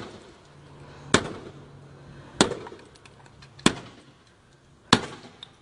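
A car being struck hard again and again: four sharp bangs, evenly spaced about a second and a quarter apart, as its body and glass are smashed.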